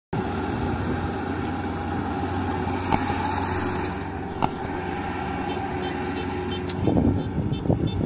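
Rice combine harvester's engine running steadily while it harvests. There are two sharp clicks about three and four and a half seconds in, and a louder, rougher stretch near the end.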